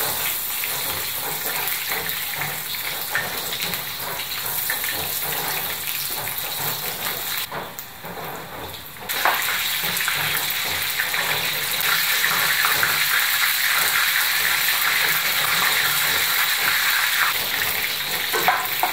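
Batter-coated chicken nuggets deep-frying in hot oil in a pan, a steady sizzle. It dips briefly about halfway through and comes back louder.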